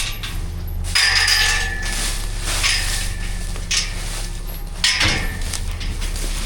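Metal chain rattling and a steel gate clanking as the chain is unhooked, giving several sharp metallic clinks, one with a brief ringing about a second in. A steady low hum lies underneath.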